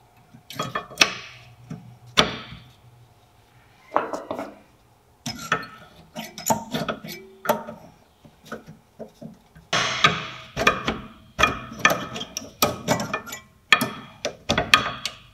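Steel-backed brake pads clicking and knocking against their slide clips as they are handled and pushed into a car's rear brake caliper carrier, in irregular clusters of sharp taps.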